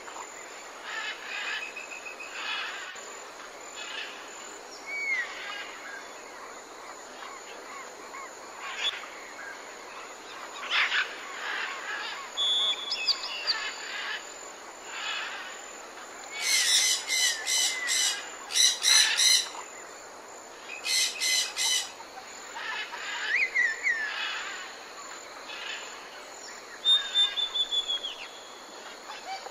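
Mixed wild bird chorus: many short chirps, trills and whistled glides from several birds, with two loud bursts of fast, rapidly repeated chattering calls a little past halfway.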